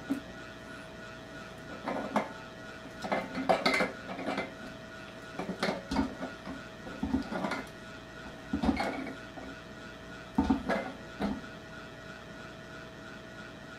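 A wrench working a brass ball valve onto a threaded brass pipe fitting: irregular metal clicks and clinks in small clusters as it is tightened, stopping a couple of seconds before the end.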